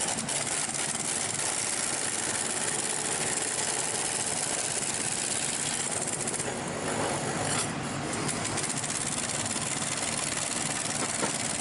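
Engine idling steadily with a constant hum and hiss.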